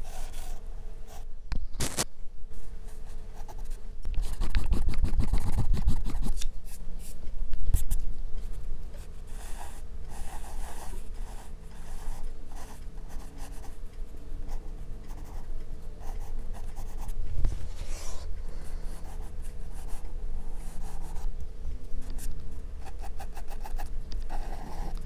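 Graphite pencil scratching across sketch paper in rapid back-and-forth shading strokes, with a denser, louder run of strokes about four to six seconds in.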